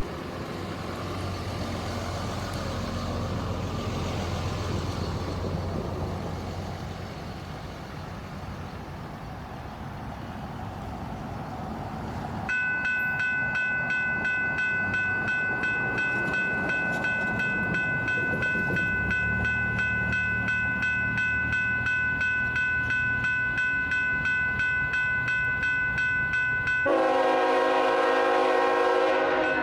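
Low vehicle rumble, then about 12 seconds in a railroad grade-crossing warning bell starts ringing rapidly and steadily. A locomotive's diesel engine rumbles in under it, and near the end the locomotive sounds a long multi-note air horn blast.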